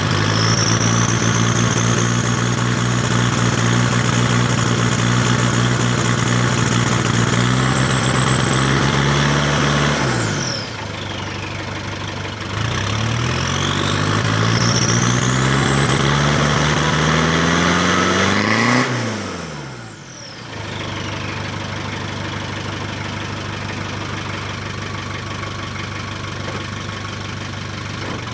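Nissan TD27 four-cylinder diesel in a Range Rover Classic, running a little rough on black diesel on its first start of the day. It is held at raised revs, drops back about ten seconds in, is revved up again a couple of seconds later and held, then falls back to a steady idle about nineteen seconds in. A faint high whine rises along with the revs.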